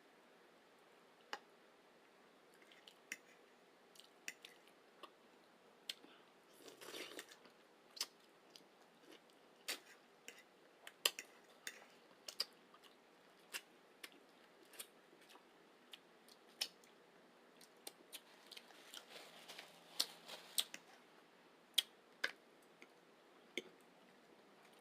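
Close-miked eating sounds: chewing with irregular sharp, wet mouth clicks and smacks, about one a second, and two short stretches of denser chewing noise about seven and twenty seconds in.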